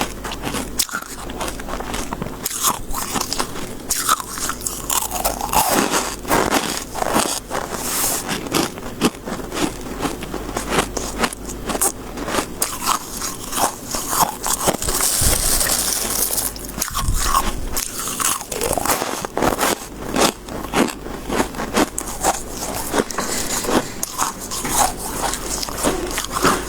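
Soft, snow-like freezer frost ice being bitten and chewed close to the microphone: dense, irregular crunching, several bites a second.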